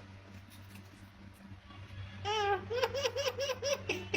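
Myna mimicking a human laugh: a short warbling note, then about five quick 'ha-ha' pulses in a row. A steady low hum runs underneath.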